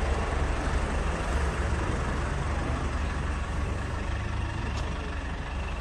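Street noise: a steady low rumble under an even hiss, with no distinct events.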